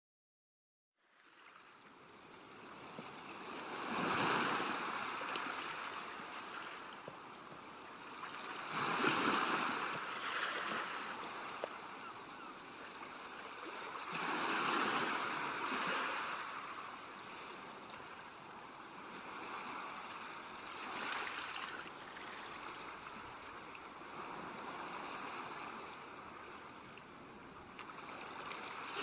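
Gentle waves washing onto a shore, from a calm seashore recording. The sound fades in near the start, then swells and falls back about every five to six seconds.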